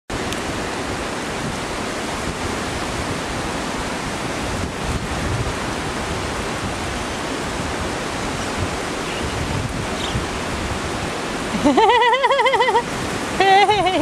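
Steady rushing background noise, with two loud, wavering pitched calls near the end.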